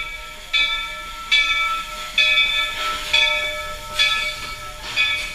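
Steam locomotive's bell ringing in even strokes, a little under one a second, as the engine pulls into the station. There is a short hiss of steam about three seconds in.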